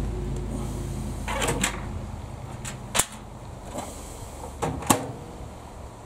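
A handful of sharp clicks and taps, about five in all, as a gloved hand works the control panel of an old Breville microwave oven. A low background rumble fades out under them.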